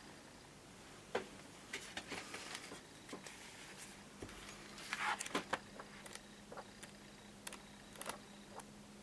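Faint, scattered light clicks and taps of small parts being handled, with a small cluster about five seconds in. A faint steady hum comes in about halfway through.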